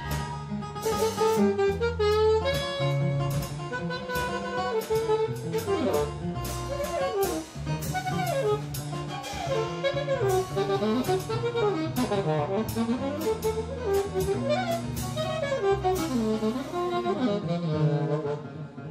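Small jazz group playing a Christmas medley: a saxophone carries a gliding melody over bass notes and drums with frequent cymbal strokes.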